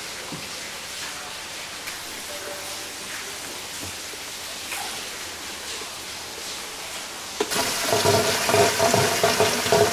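Water starts suddenly about seven and a half seconds in and rushes loudly down the pipe onto the small turbine of a hand-pumped hydro-power model. Before that there is only a faint steady hiss.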